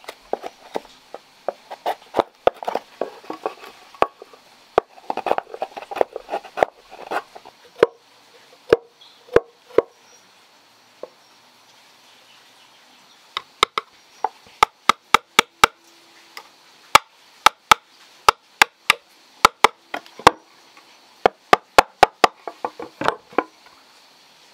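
Chisel cutting into a round wooden board being carved into a lid: a busy run of scraping, knocking cuts for the first eight seconds or so. After a short pause comes a long series of sharp, separate wooden knocks, two or three a second.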